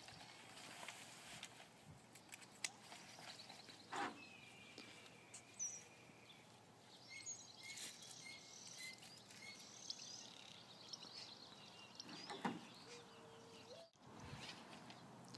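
Faint outdoor ambience with a bird calling in a short series of repeated chirps a little past the middle, and a few soft knocks.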